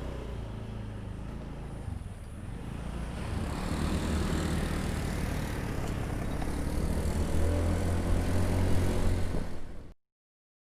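Motor vehicle running on the road, with a steady low engine hum under wind and road noise that grows somewhat louder. It cuts off suddenly near the end.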